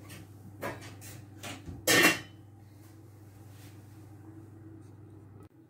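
Kitchen pots and pans being handled: a few light clicks, then one loud clank about two seconds in. After it a low steady hum that stops suddenly near the end.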